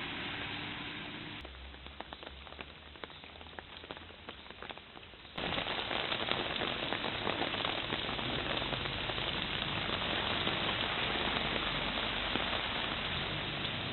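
Torrential rain pouring and splashing on hard surfaces. About a second and a half in it turns quieter, with separate drops and drips ticking. A few seconds later, about five seconds in, it switches abruptly to a loud, dense downpour.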